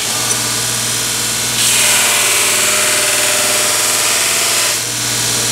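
Electric motor of a shop-built belt grinder starts and runs with a steady hum. From about one and a half seconds in, for about three seconds, steel is ground against the running abrasive belt, adding a loud hiss over the motor.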